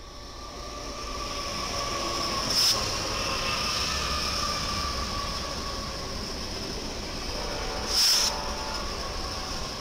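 BNSF diesel locomotives hauling an intermodal freight train past, the sound building over the first two seconds as they draw level. A steady high squeal from the wheels on the curving track runs through it, with two brief loud bursts about two and a half and eight seconds in.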